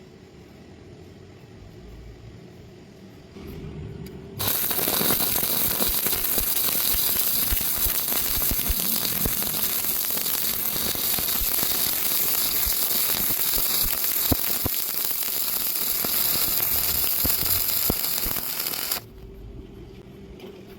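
Electric welding arc crackling and hissing steadily for about fifteen seconds, starting about four seconds in and cutting off abruptly near the end.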